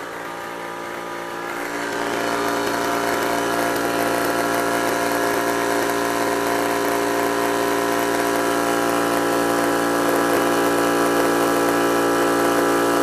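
Water-cooled Yong Heng high-pressure PCP air compressor running steadily, getting louder about two seconds in. Its bleed valves are shut, so it is pumping against a closed outlet and the pressure is building.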